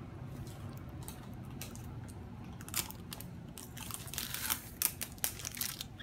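Small toy packaging being handled and torn open: scattered crinkling and crackling clicks that grow busier in the second half.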